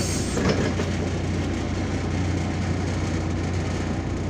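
Cabin noise of a MAZ-203 city bus under way: a steady low engine drone with road noise. A short knock comes about half a second in.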